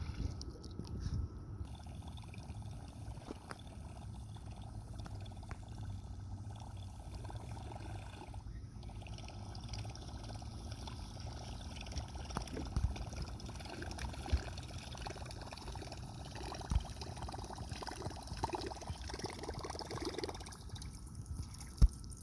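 Water trickling and lapping over a low, steady hum, with a few light knocks, the sharpest near the end.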